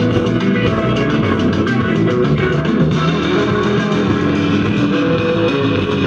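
A rock-style song with guitar and bass is played loudly through a loudspeaker. The speaker is driven by an MB Collection single-channel mono amplifier board with 5200 output transistors, turned up to full volume for a sound test.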